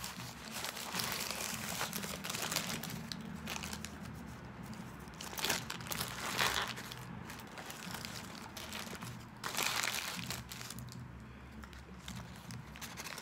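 Paper burger wrapper crinkling and rustling as it is pulled open by hand, in a run of uneven bursts, the loudest a little past halfway and again near the ten-second mark.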